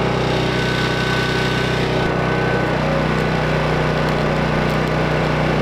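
Portable gasoline generator running steadily, powering an AC stick welder, with the crackle and hiss of arc welding over the engine. The engine note shifts slightly about three seconds in.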